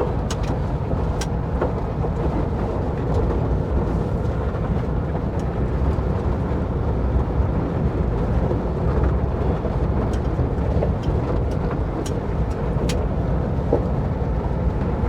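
A 1958 Volkswagen Bus driving over a rough dirt trail: a steady low engine and road rumble with scattered clicks and knocks of rattling.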